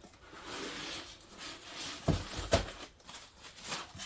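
Cardboard box and foam packing rustling and scraping as parts are lifted out of the box, with two knocks a little after two seconds in.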